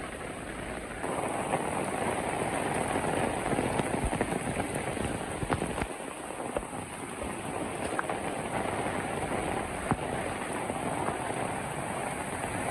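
Heavy rain falling, mixed with the rushing of a mountain valley stream swollen by the rain. It is a steady wash of noise that grows louder about a second in, with a few sharp drop ticks.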